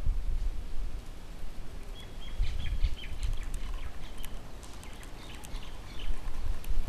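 Scattered short, high bird chirps and ticks through the middle of the clip, over a low rumble.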